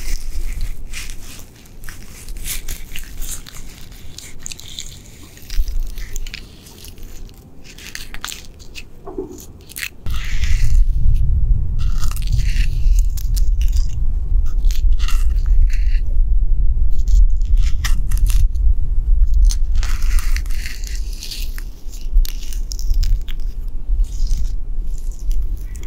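Gloved fingers scratching and scraping rough, flaky tree bark right at the microphone, a run of short crackly scratches. From about ten seconds in a steady low rumble of wind on the microphone sits underneath.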